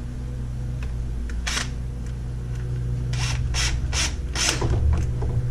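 Short, sharp scraping clicks of tool work on an Echo CS-355T chainsaw as its top cover is refitted: one about a second and a half in, then four in quick succession near the end. A steady low hum runs underneath.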